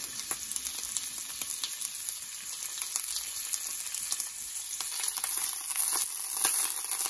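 Steak fat cap sizzling and spitting in hot oil in a cast iron skillet: a steady high crackle full of sharp pops, a little louder near the end.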